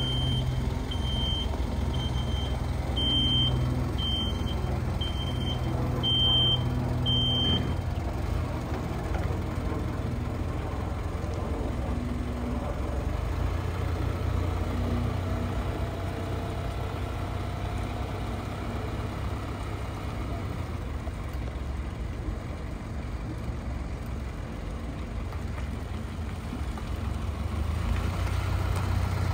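2007 Isuzu NPR box truck running with a steady low engine rumble. Its backup alarm beeps about once a second and stops about eight seconds in, after which only the engine is heard.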